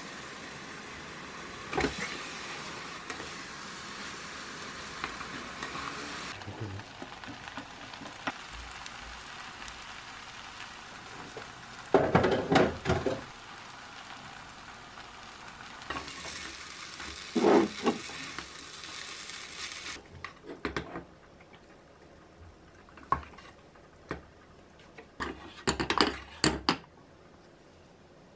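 Kimchi fried rice sizzling in a frying pan while a wooden spatula stirs and scrapes it against the pan. There are loud scraping clatters around the middle and a run of scoops and knocks near the end.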